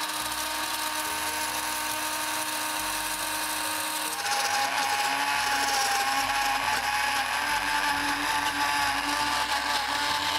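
Countertop blender running steadily while oil is drizzled in to emulsify mayonnaise. About four seconds in its whine drops a little in pitch and gets louder, the change in sound that comes as the mayonnaise thickens and loads the motor.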